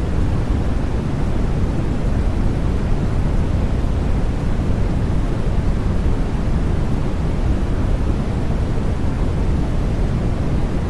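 Continuous white noise for baby sleep: an even, unchanging hiss that is deep, with most of its weight in the low end and little in the highs.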